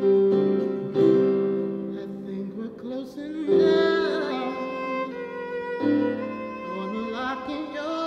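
A small acoustic band plays a song on electronic keyboard, acoustic guitar and violin, with a man singing. New chords are struck about one, three and a half, and six seconds in, and a wavering bowed violin line is heard through the later part.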